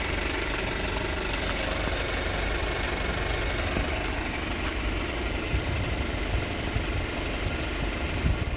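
Kia Sportage SUV's engine idling steadily.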